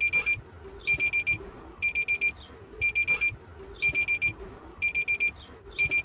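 Digital alarm clock beeping: bursts of four quick high-pitched beeps, repeating about once a second.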